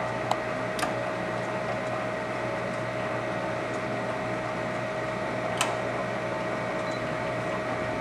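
Residential gas furnace's inducer draft motor running steadily with a constant whine, building the draft that the pressure switch senses. There are two sharp clicks in the first second and another about five and a half seconds in.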